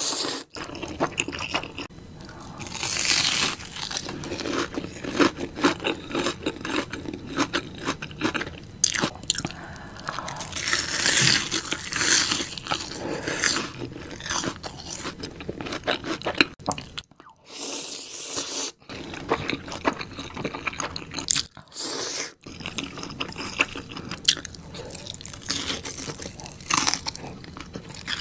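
Close-miked eating: crunchy bites and chewing, with crackling mouth sounds, broken by two short pauses past the middle.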